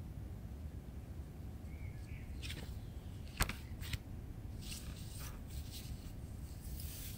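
Polaroid prints handled on a table: a sharp tap and a smaller one as a print is set down, then papery sliding and rustling as the prints are pushed around, over a low steady hum.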